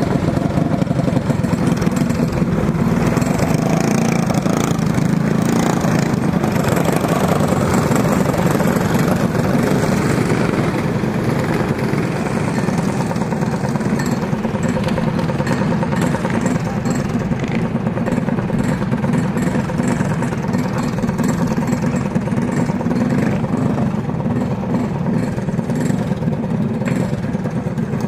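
Small single-cylinder clone kart engine idling steadily.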